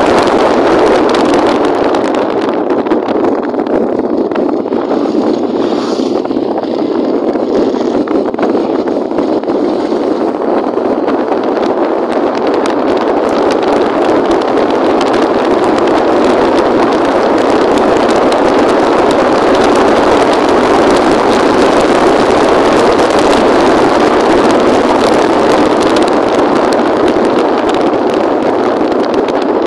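Steady loud rush of wind and road noise on the microphone of a motorcycle riding at speed, with no clear engine note standing out.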